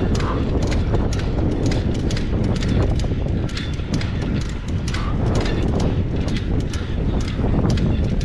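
Wind rumble and handling knocks on a camera's microphone, the camera held in one hand while riding a tandem bicycle uphill, with a fast irregular run of sharp clicks over a steady low rumble.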